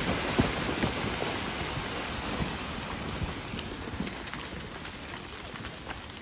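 Rockslide down a steep rock face: a continuous rumble of tumbling rock and debris with scattered knocks of stones striking, gradually dying away.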